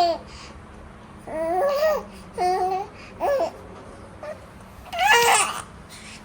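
A baby babbling: four short, high-pitched vocal sounds with wavering pitch, the last one, about five seconds in, the longest.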